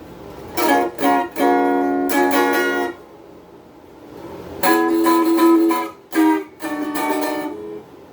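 Donner DST-80 strat-style electric guitar played through its small included practice amp on the overdrive channel at low volume, with hall reverb: two short phrases of ringing notes and chords, with a pause about three seconds in.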